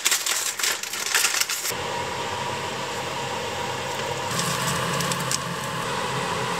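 Gyozas frying in oil in a pan, a dense crackling, then from about two seconds in a steady whir with a faint hum, like a kitchen extractor hood fan, with light crackling again around the middle.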